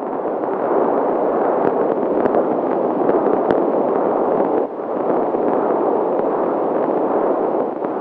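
Maternal venous blood flow picked up by a BabyBeat fetal Doppler and played through its speaker: a continuous rushing noise with no heartbeat pulse, dipping briefly about four and a half seconds in, with a few faint clicks.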